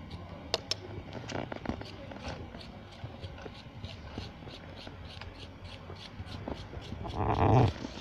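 A small knife blade scraping and cutting packed snow in short strokes while a snow head is carved. A faint high tick repeats about three to four times a second throughout, and a louder half-second burst comes near the end.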